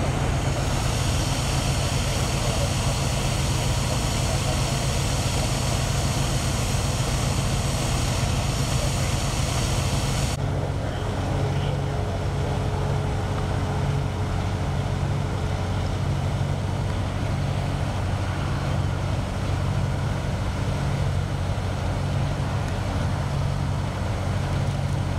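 Steady low rumble of idling engines, with a fire engine's diesel idling close by. The sound changes abruptly about ten seconds in.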